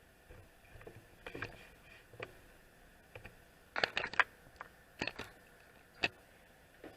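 Scattered light clicks and knocks of Ender 3 V2 3D printer parts being handled and fitted back together, with a quick cluster of clicks about four seconds in.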